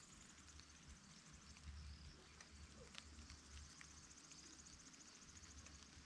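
Faint meadow ambience: insects, such as crickets, chirping in a steady, fast-pulsing high trill. A few light ticks are scattered through it, over a soft, uneven low rumble of wind.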